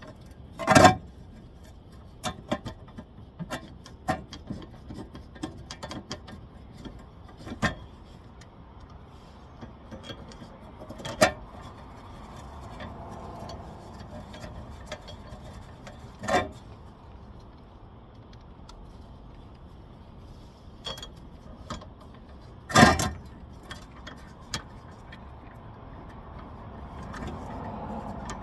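Scattered metal clinks and knocks of a socket and wrench being worked through the access holes of a rear wheel hub bearing to line up and thread its mounting bolts, with a louder knock about a second in and another about three-quarters through. Traffic passing in the background swells up twice.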